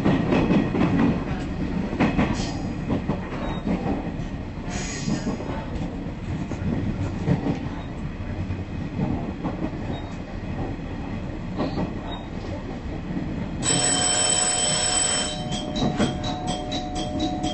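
KiHa 110 series diesel railcar running along curving track, the wheels and engine rumbling steadily. About three-quarters through, a louder ringing sets in and turns into quick, regular pulses: a level-crossing warning bell as the train nears the crossing.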